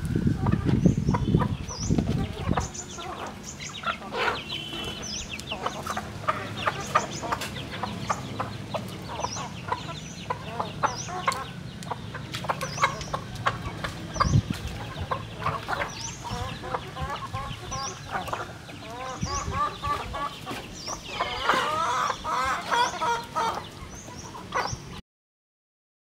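Chickens clucking while feeding, over many short pecking taps, with a short high peep repeating about once a second. The clucking grows busier near the end, then the sound cuts off suddenly.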